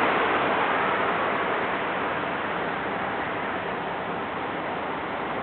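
Steady road and engine noise heard inside a car, a smooth hiss that slowly grows quieter.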